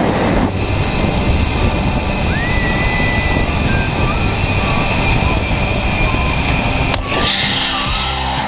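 Zip line trolley running fast along the steel cable, a loud rushing whine, with wind buffeting the microphone. About seven seconds in it changes with a click and a brighter hiss as the rider slows into the landing.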